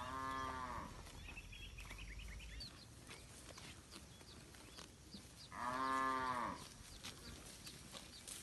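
Village cattle mooing: two calls about a second long each, the second one louder and coming about five seconds after the first.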